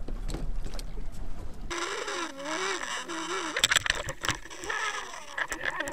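Wind and water noise on an open boat, cut off about two seconds in by underwater sound: a wavering, buzzing whine with several sharp knocks.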